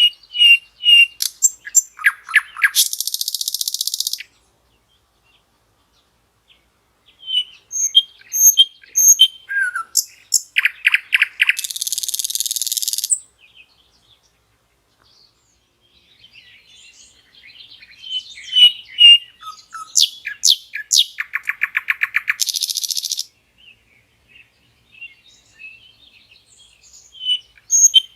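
Common nightingale singing: three song phrases, each a run of short whistled and rapidly repeated notes that ends in a harsh buzzing trill, separated by pauses of a few seconds. Another phrase begins near the end.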